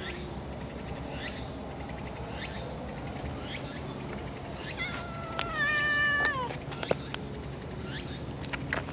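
A brown tabby-and-white cat gives one drawn-out meow about five seconds in, held at a steady pitch and dropping at the end.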